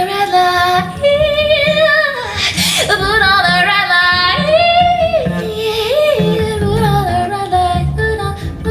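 Recorded music played through King Sound full-range electrostatic loudspeakers: a woman singing long, wavering held notes over guitar and a pulsing bass line.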